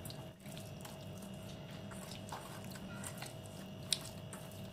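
Hands squishing and rubbing wet masala marinade into raw chicken pieces in a steel bowl: faint soft squelches and small ticks, with one sharp click near four seconds in. A faint steady hum runs underneath.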